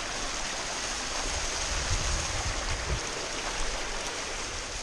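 Rushing water: a steady hiss of flowing, cascading water, with a few low rumbles in the middle.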